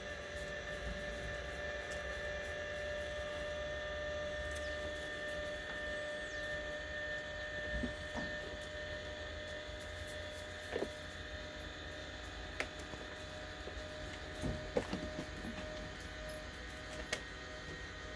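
Small electric motor of a remote-controlled solar panel tilt mechanism running with a steady whine as it lifts the panel, with a few short clicks along the way.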